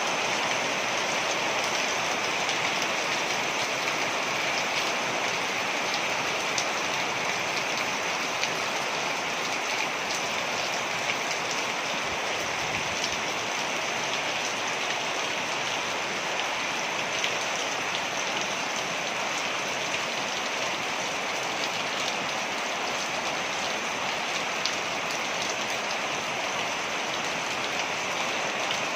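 Waterfall: a steady rush of falling water splashing, with a few faint droplet ticks scattered through it.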